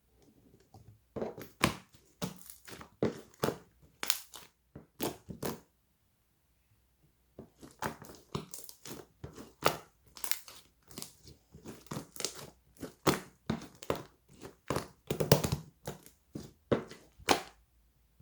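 Clear slime being squeezed and played with by hand, giving quick sticky pops and crackles in irregular bunches, with a pause of about two seconds midway.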